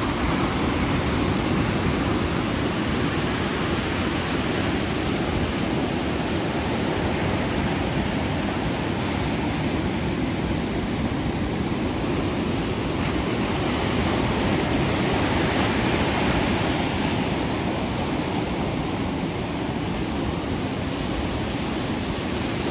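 Ocean surf: a steady wash of breaking waves that swells a little past the middle.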